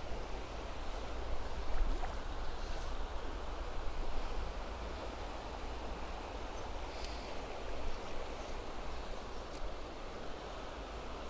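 Shallow river running over a stony bed: a steady rush of flowing water.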